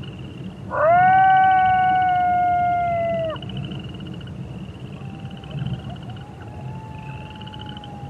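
Wolves howling. One near howl swoops up and holds a long, slowly falling note for about two and a half seconds. A fainter howl follows about five seconds in. A steady, fast-pulsing high trill and a low rumble run behind them.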